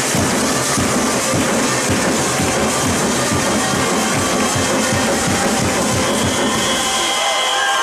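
Music with a steady beat, with a few held notes coming in near the end.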